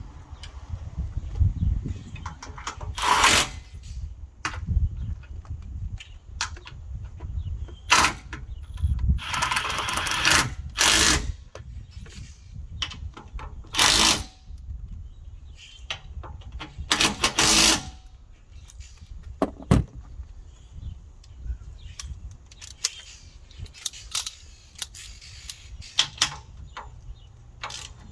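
Socket ratchet tightening the mounting bolts of a trailer tongue jack, heard as about a dozen separate bursts of clicking, each up to about a second and a half long, with pauses between them.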